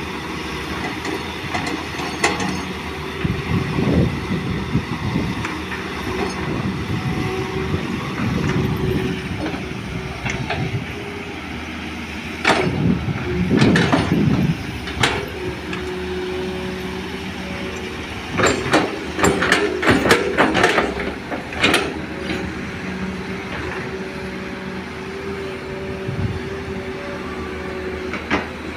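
Crawler excavator's diesel engine running steadily under load while it digs and loads soil. Bouts of clatter come as earth and rocks drop from the bucket into a steel dump-truck bed, the loudest in the middle and about two-thirds of the way through.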